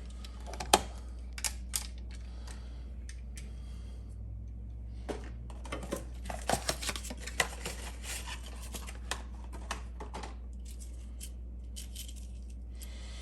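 Small, sharp clicks and light metallic rattles from handling a GFCI outlet and its wiring, likely a screwdriver on the terminal screws and the outlet being moved about. The clicks are scattered, with a busier run in the middle and the loudest one under a second in, over a steady low hum.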